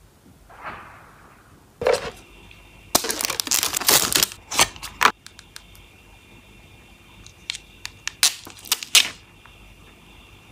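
Plastic makeup compacts and a palette case being handled: sharp clicks and taps, with a dense run about three to five seconds in and another near the end, and a short soft rub about a second in.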